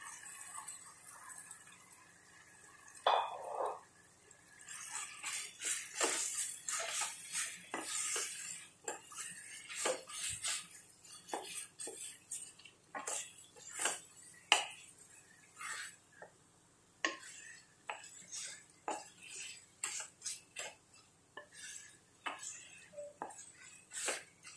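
A wooden spatula scrapes and knocks irregularly against a non-stick kadai as marinated chicken pieces are stirred into hot masala. The oil sizzles underneath.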